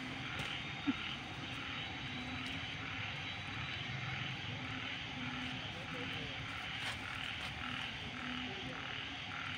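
A steady frog chorus, the calls coming in repeated pulses over a constant hum of calling. A single short click stands out about a second in.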